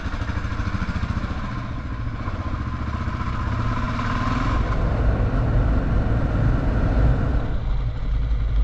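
Kawasaki KLR650 motorcycle's single-cylinder engine running steadily as the bike rides along, a low pulsing thump, growing a little louder about halfway through.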